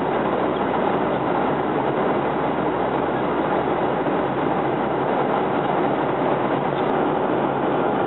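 Steady rushing cabin noise of a passenger jet in flight: engine and airflow noise, even and unbroken.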